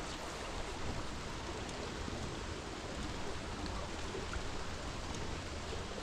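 Steady rain mixed with flowing stream water: an even hiss, with faint scattered drop ticks.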